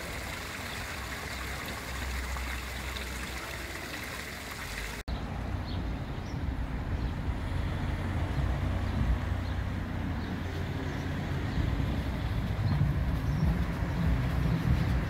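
Water splashing steadily in a stone town fountain for about five seconds. After a sudden break, street traffic takes over: cars driving past on a cobbled road, a low rumble that grows louder toward the end.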